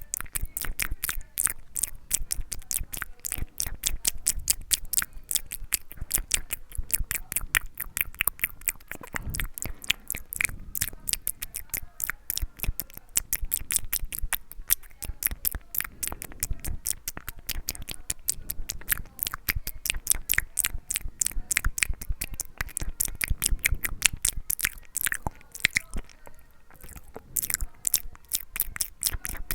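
Close-miked ASMR mouth sounds: a rapid, continuous run of wet clicks and smacks from the lips and tongue, several a second.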